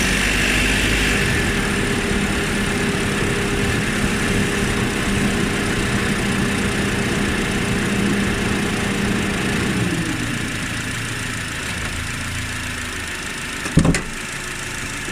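Honda Odyssey RB2's K24 2.4-litre inline-four running on the move, its engine note steady and then easing off about ten seconds in. The owner reports a knock from this engine at 1600–1800 rpm while driving. A single sharp thump comes near the end.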